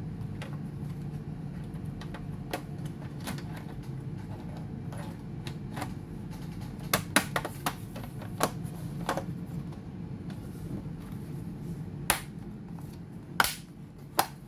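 Irregular sharp clicks and taps of laptop parts and tools being handled, over a steady low hum.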